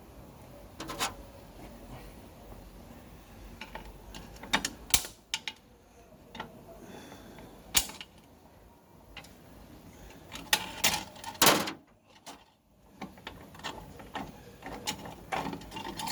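Turbo 400 transmission parts being handled: irregular metallic clicks and clanks as clutch plates and steel pieces are lifted out and set down, with a cluster of louder knocks about eleven seconds in.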